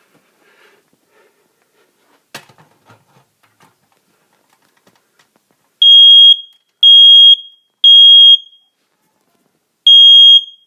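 Combination smoke and carbon monoxide alarm sounding its test: loud, high-pitched beeps in the three-beep smoke-alarm pattern, a pause, then the next set of three beginning near the end. A faint knock comes about two seconds in.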